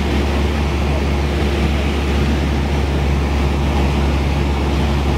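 Piston engine and propeller of a single-engine light aircraft droning steadily in flight, heard from inside the cabin: a constant low hum with an even level throughout.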